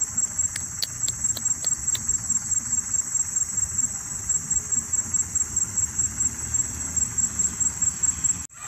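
An insect chirping steadily in a high-pitched, pulsing trill, several pulses a second, with a few faint ticks in the first two seconds; the sound breaks off briefly near the end.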